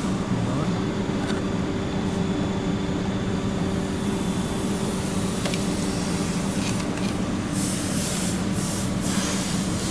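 Compressed air hissing in several short bursts during the last three seconds, air escaping through a hole in a charge-air hose during a boost-system pressure test on a VW Passat 2.0 TDI. A steady mechanical hum runs underneath.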